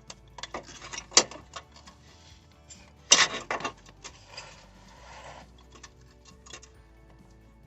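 Air suspension compressor being worked into its mounting by hand: scattered sharp clicks and knocks as its pins are seated, the loudest cluster about three seconds in, followed by a short rustle.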